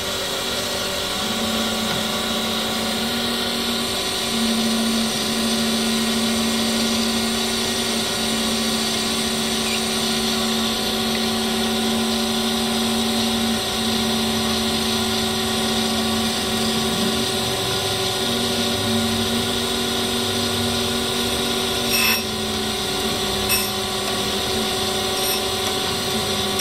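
Brown & Sharpe Micromaster 618 surface grinder running, its grinding wheel taking a heavy cut on a workpiece: a steady hiss over the machine's hum, with a low drone that comes and goes. Near the end, a few sharp ticks about a second and a half apart.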